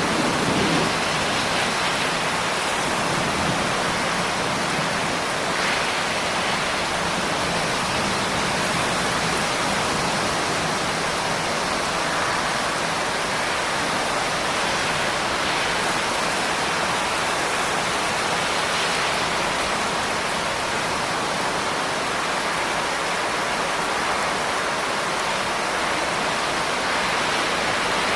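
Steady rain falling, a dense even hiss with no single drops standing out.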